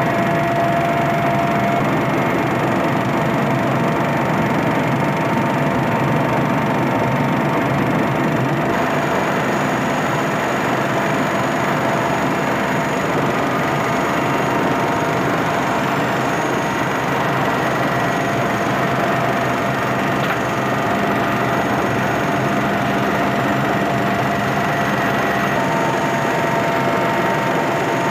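Helicopter engine and rotor noise heard inside the cockpit in flight: a loud, steady drone with a few faint steady whines over it.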